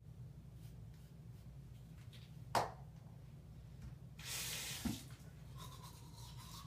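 Small handling sounds at a bathroom sink while a toothbrush and toothpaste are readied: one sharp click a bit over two and a half seconds in, then a short hiss just after four seconds that ends in a knock, over a low steady room hum.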